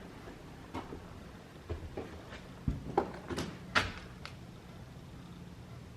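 A few scattered light knocks and clicks, about eight over several seconds, the louder ones around the middle, over a faint steady low hum.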